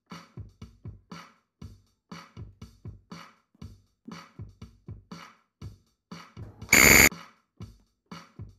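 Quiz countdown-timer sound effect: a quick, even electronic ticking, about three ticks a second. About seven seconds in, a short, loud alarm-like buzz marks the time running out and the answer being revealed.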